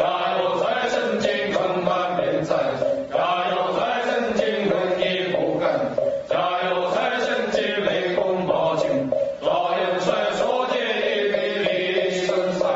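Continuous mantra chanting: a sung recitation that runs without pause over a steady held tone.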